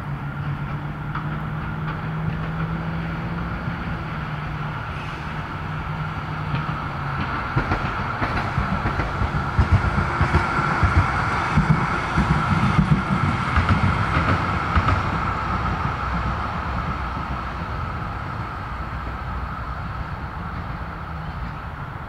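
Low rumble of a vehicle passing in the distance. A steady low hum at first swells to its loudest about halfway through, with a rapid rattle, then slowly fades.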